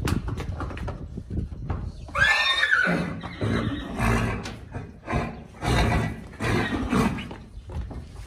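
A horse whinnies loudly about two seconds in, one high call that rises and falls in pitch, followed by several shorter, rougher sounds.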